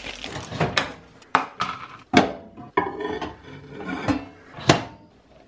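Kitchen handling sounds: a run of sharp knocks and clinks of a plate and its lid, with a little rustling of a plastic food packet, as a covered plate is set into a microwave oven. The loudest knock comes near the end.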